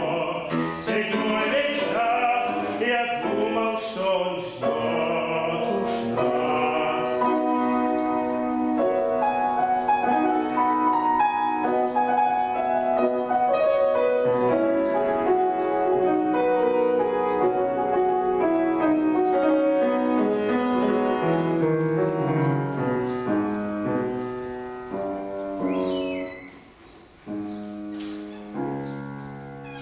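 Male classical singer performing an art song or aria with piano accompaniment, the voice wavering with vibrato over sustained piano chords. Near the end the singing stops and the piano plays on alone.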